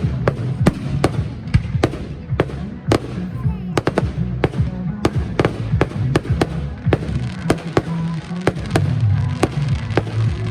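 Fireworks going off in quick irregular succession, many sharp bangs a second, over music with a steady bass line.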